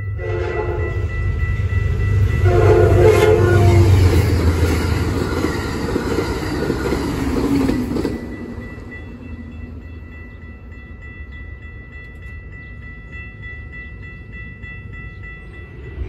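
Train horn sounding two blasts, the second about two and a half seconds after the first, as a train rushes past with the loud rush of its cars, which stops abruptly about eight seconds in. A grade-crossing warning bell rings with a steady high tone before the train noise and after it.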